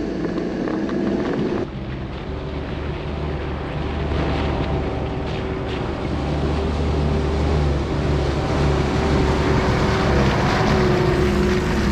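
Toyota Hilux engine running steadily in low range as the truck creeps through a muddy puddle on a bush track, heard first from inside the cab and then from outside, growing louder as it comes closer.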